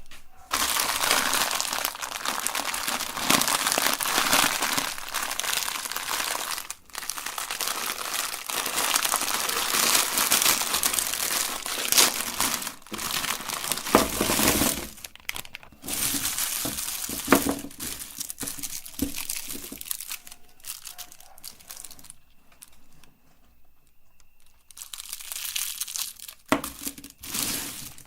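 Crinkling and crunching of fruit candy and its wrappers, in long spells broken by short pauses, with a quieter stretch near the end.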